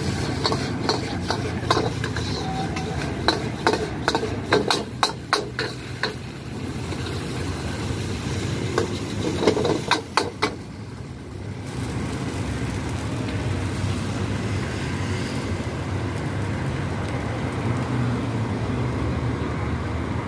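A metal ladle clanking and scraping against a wok while rice vermicelli is stir-fried, in quick runs of strikes, over the steady roar of a gas wok burner. The clanking stops about eleven seconds in, leaving only the burner running.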